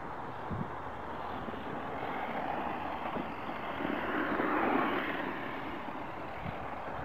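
HPI Bullet Flux MT, a brushless electric RC monster truck, driving on loose dirt: a steady whirring of motor and tyres that swells louder about four to five seconds in.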